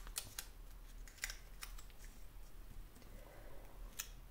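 Paper and sticker handling on a desk: a few light clicks and taps with soft paper rustle as the planner inserts are slid into place and a sticker is picked up.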